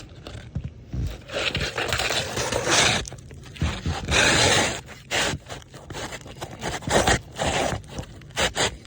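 A new roof shingle being slid into place under the overlapping shingles: a run of irregular scraping strokes with short pauses between them.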